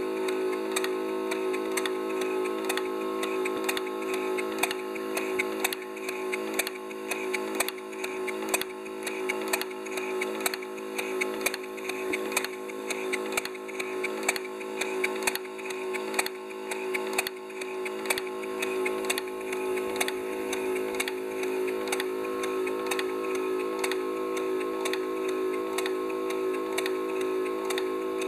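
Engine and geared drive of a 5-inch gauge model Heisler locomotive running on compressed air at about 8 psi. Its valve gear, eccentric-driven feed pump and mechanical lubricator click two to three times a second over a steady hum.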